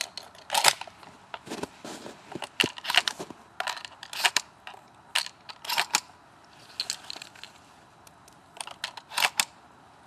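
Irregular crackling and rustling close to the microphone: a string of short scrunching, crunching noises, roughly one or two a second, with no gunshot among them.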